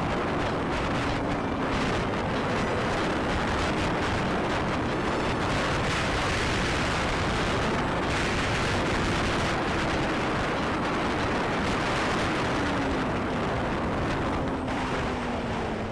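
Slingshot open-cockpit three-wheeler on the move: a steady rush of wind and road noise over a low engine drone whose pitch drops slightly near the end.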